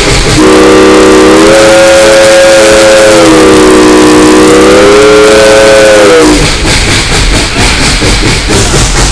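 Steam locomotive whistle on Tweetsie Railroad No. 190, a Baldwin 4-6-0, heard at close range from inside the cab. It blows one long blast whose pitch dips and rises as it is held, and it stops about six seconds in. The locomotive's rhythmic exhaust and running noise then carry on.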